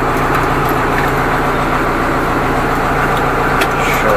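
Deutz-Fahr tractor's diesel engine running steadily, heard from inside the cab.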